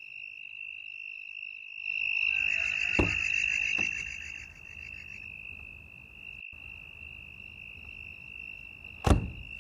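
Night chorus of crickets and other insects: a steady high trill with faster chirping above it, growing louder and denser for a few seconds about two seconds in. Two light clicks come during that louder stretch, and a single sharp knock comes near the end.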